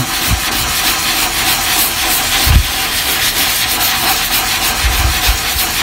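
A sanding sponge block rubbed back and forth under light pressure over the iMac G3's hard plastic inner bezel, a steady rasping as it knocks down the rough spots on a repaired crack. There are a couple of dull low bumps partway through.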